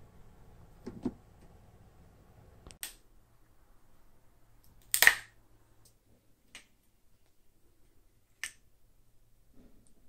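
A few separate sharp mechanical clicks and knocks from handling a homemade crossbow and its trigger mechanism. The loudest is a sharp snap about five seconds in.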